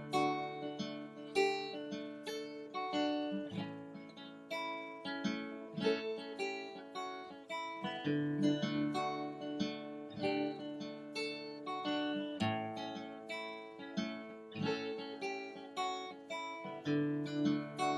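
Background music: acoustic guitar played with plucked notes and strums in a steady rhythm.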